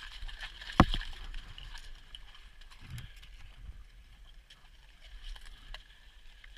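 Horses walking on a wet gravel track: scattered hoof clicks and crunches, with one sharp knock about a second in.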